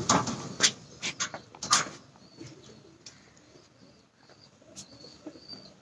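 Domestic pigeons cooing in wire-mesh breeding lofts, with a few loud rustling knocks in the first two seconds and faint high chirps near the end.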